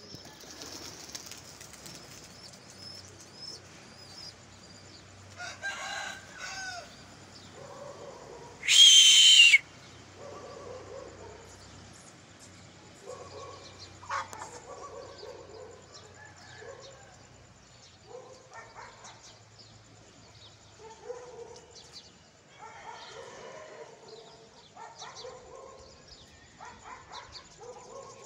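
Domestic pigeons making short, repeated calls, with wing flapping. About nine seconds in there is one loud, high-pitched sound lasting about a second.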